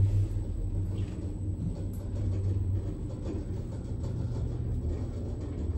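Passenger lift car travelling down between floors, heard from inside the car: a steady low hum and rumble.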